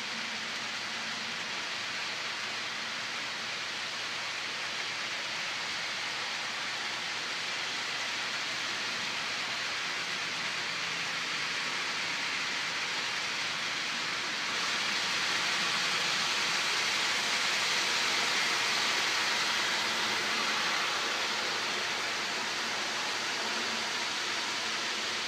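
HO scale model freight cars rolling along the track: a steady rushing hiss of many small wheels on rail, growing louder about halfway through and easing off again a few seconds later.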